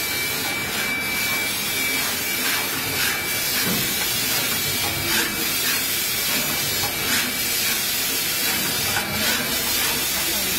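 Steady hiss of factory machinery, with faint irregular clicks from an automatic gantry machine applying support tape to flex PCBs.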